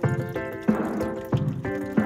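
Background music: a melody of short pitched notes over a steady beat.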